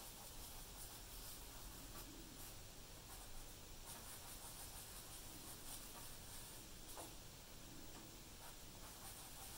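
Faint scratching of a pencil on paper as short, spaced strokes are drawn, with a few light ticks where the lead touches down.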